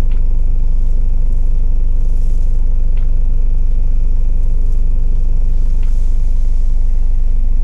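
Toyota Hiace KZH106's diesel engine running steadily with a deep, even hum. It is running on a refurbished ECU that replaced one with leaking capacitors.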